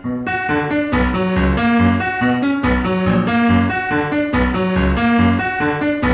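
Background music: a piano-led track with a steady beat and bass notes.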